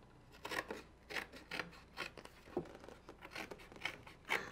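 Scissors snipping through the thin cardboard of a cereal box, a crisp cut about twice a second.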